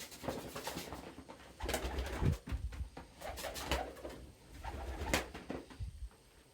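Domestic pigeons cooing in a loft, among scuffling, rustling and sharp clicks, with a louder stretch of low rustle from about a second and a half in to near the end.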